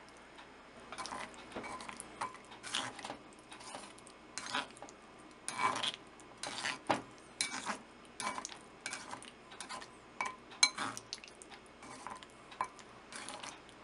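Chopsticks scraping and clicking against a ceramic suribachi (grooved mortar) as sea bream slices are tossed in a thick paste. The strokes come irregularly, about one or two a second, starting about a second in.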